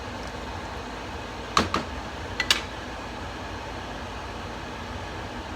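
A steady fan-like whir, with two quick pairs of short sharp clinks near the middle, typical of a utensil knocking against a cooking pot.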